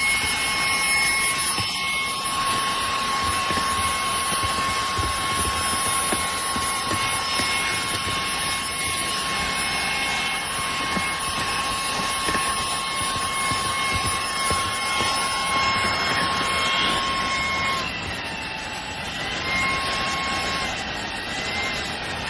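Fanttik Slim V10 APEX cordless handheld car vacuum running: a steady high-pitched motor whine over a rush of air. Near the end its pitch drops slightly and wavers up and down a few times, as the motor's load changes.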